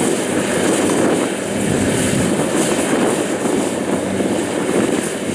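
Kubota DC-70 combine harvester's diesel engine and threshing machinery running steadily under load while it cuts and threshes flattened rice.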